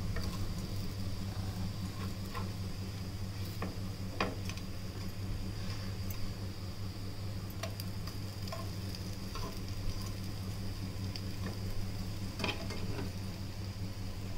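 Semolina-coated elephant foot yam slices sizzling in shallow oil in a nonstick pan on low heat. Scattered scrapes and taps come as a metal spatula and fork turn the slices, over a steady low hum.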